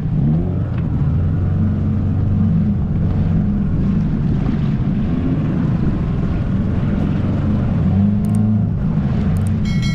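Dinghy outboard motor running steadily under way, its pitch wavering slightly.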